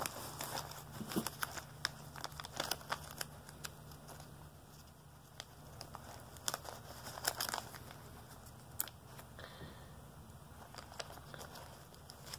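Thin clear plastic bag crinkling and crackling in the hand in irregular bursts while a key fob is worked inside it.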